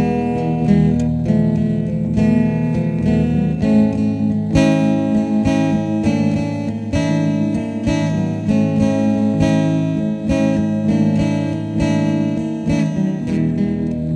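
Acoustic guitar music with strummed chords.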